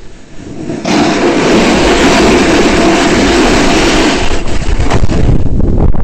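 Skiing fast downhill: wind rumbles on the microphone throughout. About a second in, a loud, steady hiss of skis sliding on snow starts, lasts about three seconds, then breaks into scattered scrapes.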